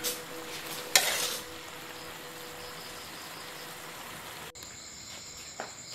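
Food sizzling in a hot wok, with a sharp metal clank about a second in followed by a brief louder burst of sizzling. About four and a half seconds in, it cuts off abruptly to a steady high chirring of crickets.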